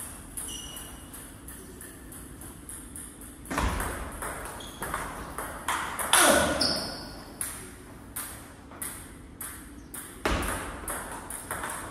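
Celluloid-type table tennis ball being hit back and forth in a practice rally: sharp clicks of the ball off rubber bats and bounces on the table, several a second. A few louder strikes come as topspin attacks are played against backspin.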